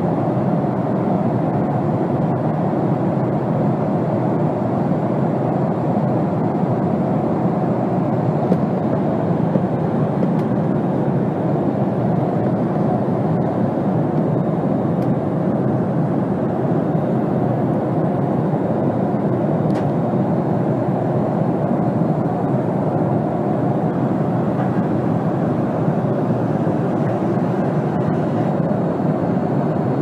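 Jet airliner cabin noise in cruise: the steady, even rumble and rush of the engines and airflow heard from a passenger seat, unchanging throughout.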